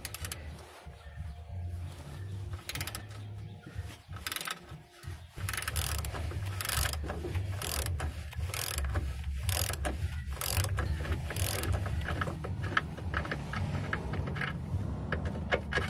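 Ratchet wrench clicking in quick runs as a 19 mm socket on an extension turns out the lower control arm-to-crossmember bolt, over a low rumble. The clicking grows busier about six seconds in.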